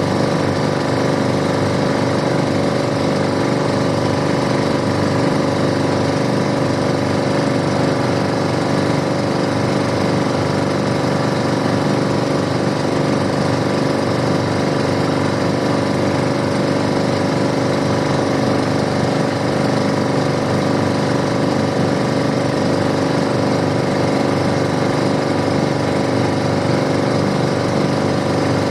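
Boat engine running steadily at a constant speed, a loud, even drone whose pitch does not change.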